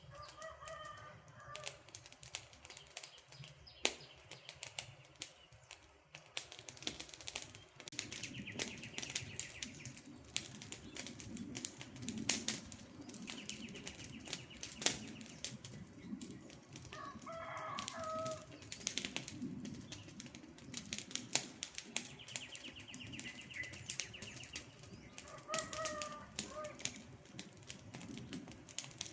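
Campfire burning, wood crackling with frequent sharp pops and snaps over a low rush of flame. A bird calls three times: near the start, in the middle and near the end.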